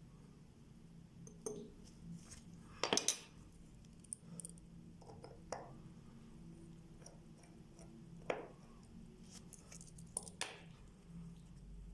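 Sparse light clicks and clinks of small metal watchmaker's tools and parts being handled while a Vostok Amphibian watch movement is taken apart. There is a louder cluster of clinks about three seconds in and single taps near eight and ten seconds, over a faint steady low hum.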